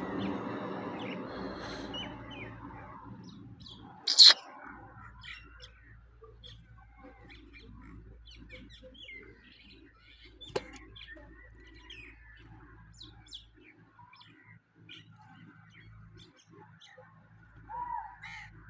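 Small birds chirping and twittering, many short high calls throughout. A fading rush of noise in the first few seconds, one loud brief noise about four seconds in, and a sharp click near the middle.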